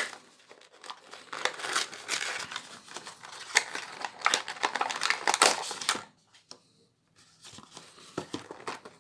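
Packaging of a Pokémon trading card theme deck box being torn and crinkled open by hand, a busy crackling rustle that stops about six seconds in, followed by a few light handling clicks.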